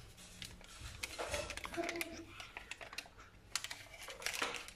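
Light clicking and crinkling of a plastic sachet of instant yeast as it is torn open and emptied over a glass mixing bowl. The clicks come in an irregular run and grow busier near the end.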